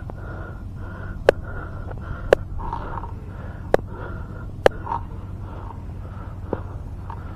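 A steady low hum with a faint pulsing tone, broken by four sharp clicks about a second apart and a weaker fifth click near the end.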